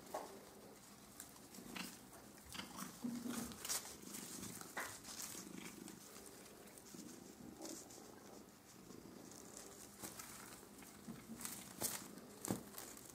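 Paper streamers rustling and crackling in short bursts as a cat bats, bites and tugs at them, with the cat's low rumbling sounds now and then. The sharpest crackle comes near the end.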